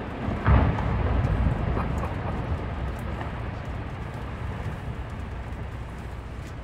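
Glacier ice calving into the sea: a sudden loud crash about half a second in, then a low rumble of falling ice that slowly dies away.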